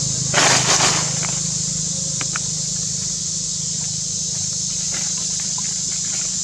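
Monkeys moving over dry leaf litter: a short loud rustle and crunch of dry leaves about half a second in, then a few faint crackles, over a steady high hiss and a low hum.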